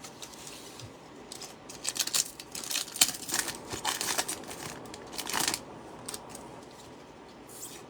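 Plastic wrapper of a pack of football trading cards being torn open and crinkled. A run of crackling bursts falls in the middle few seconds.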